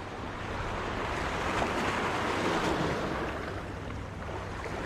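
Sea waves and wind, a steady rushing noise that swells a little in the middle.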